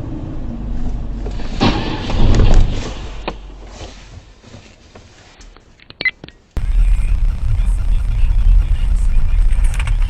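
Low rumble of heavy vehicles with a loud crashing impact about two seconds in that dies away; after an abrupt cut, a loud steady low rumble.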